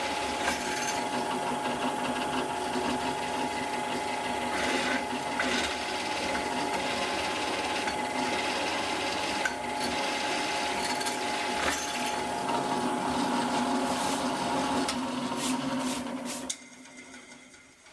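Electric drill running steadily with a constant motor tone while drilling holes in aluminium ready for tapping; it stops near the end.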